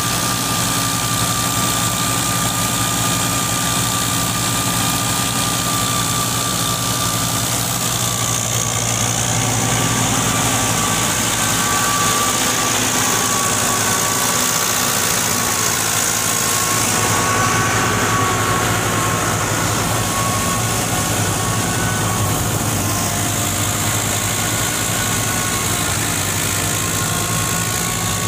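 Fiat 640 tractor's four-cylinder diesel engine working steadily under load, driving a wheat thresher through its PTO. The engine's drone runs together with the thresher, and a high whine above them wavers slightly up and down.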